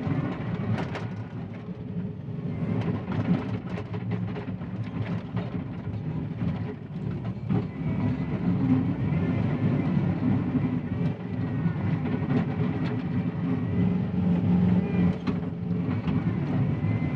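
John Deere 333E compact track loader working under load: its diesel engine runs steadily while the tracks and bucket clatter and knock as it pushes through slippery clay.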